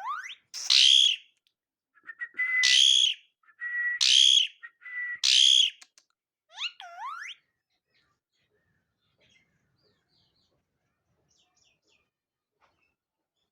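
Pet parakeet calling: four loud, harsh screeches about a second apart, with a thin steady whistle between them, then a couple of rising whistled glides. It goes quiet about eight seconds in.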